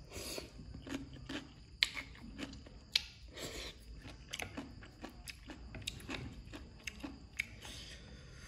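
Close-up chewing and crunching of papaya salad, with irregular sharp wet clicks and crunches several times a second.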